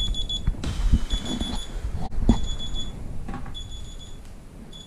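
Smartphone wake-up alarm going off: a high electronic beeping in clusters of rapid pulses, repeating about once a second and growing fainter, with knocks and rustling as the phone is picked up and handled.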